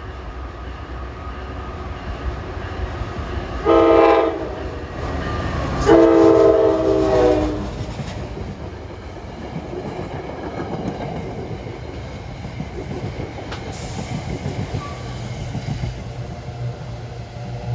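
Diesel locomotive's air horn on an NJ Transit commuter train sounds a short blast about four seconds in and a longer one about two seconds later. Then the train's coaches rumble and clack past at speed.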